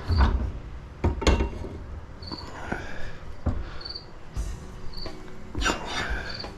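Scattered knocks and clunks of metal being handled, about six in all, as scrap copper pipe is moved into position for cutting. An insect chirps steadily in the background, one short high chirp about every second.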